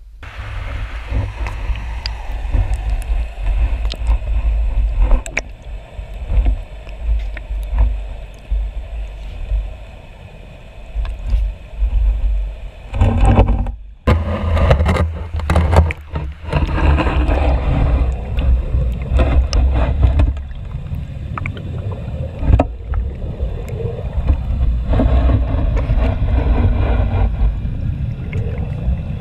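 Brook water rushing and churning, heard through a GoPro's waterproof housing held in the current: a heavy muffled rumble with scattered sharp clicks and knocks, and a brief dropout about halfway through.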